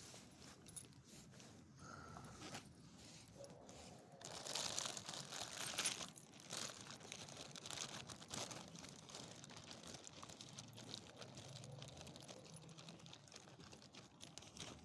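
Irregular crinkling and crunching with many small clicks, loudest between about four and six and a half seconds in.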